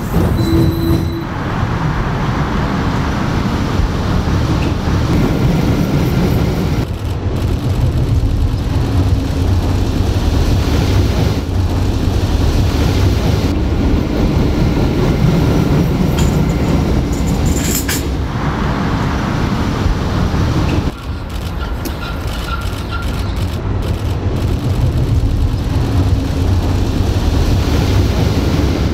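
Steel roller coaster train running along its track: a steady rolling rumble of wheels on rail, with abrupt shifts in level several times.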